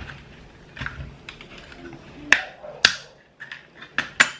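Sharp plastic clicks and snaps from a flat-head screwdriver prying a plastic lock on a coin-slot housing, as the latch gives way. About five clicks, the loudest a little past two seconds in and near three seconds, with two more near the end.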